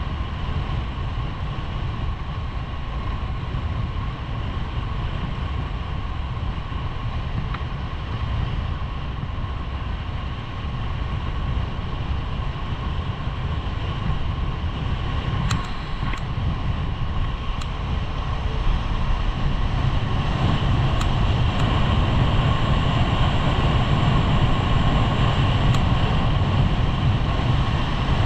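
Wind rushing over a skier's camera microphone, with skis running on groomed corduroy snow. It grows louder about two-thirds of the way through as speed builds, with a few sharp clicks.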